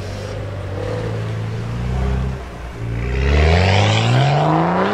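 BMW M2 with a Fi valved exhaust by PP-Performance, its turbocharged straight-six running low and steady, then pulling away under throttle with the engine note rising and getting louder over the last two seconds.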